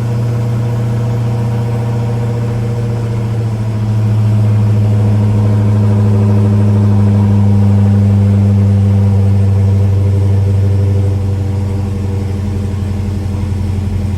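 Dodge Challenger Hellcat's supercharged 6.2-litre HEMI V8 idling with a steady low note. It gets louder about four seconds in and eases back around eleven seconds.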